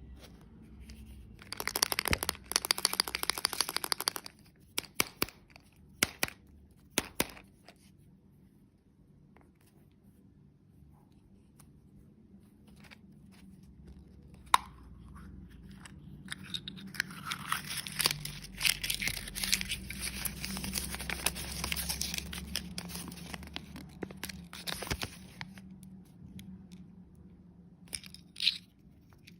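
Candy wrappers being torn open and crinkled by hand. A burst of crackly tearing comes about two seconds in, then a few sharp clicks, then a longer stretch of crinkling in the second half and a short rustle near the end.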